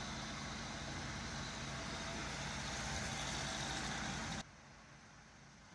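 VW Golf 6 1.6 TDI common-rail diesel engine (CAYC/CAYB) idling steadily, cutting off suddenly about four seconds in.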